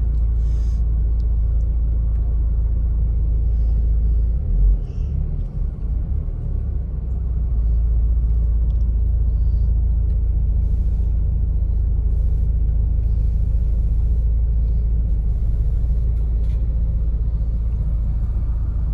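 A car being driven, a steady low rumble throughout. About four and a half seconds in, a sudden thump is followed by a couple of seconds of uneven rumble before it settles again.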